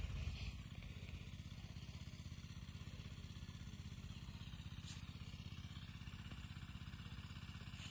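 A small engine running steadily at a low, even idle with a fast regular pulse, heard faintly.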